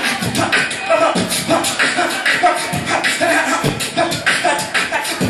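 Live human beatboxing into a handheld microphone, with a steady rhythm of sharp mouth-made kick and snare hits.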